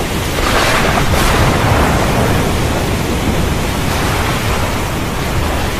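Loud, steady rush of water: a dense, unbroken hiss, as from torrential rain or floodwater pouring.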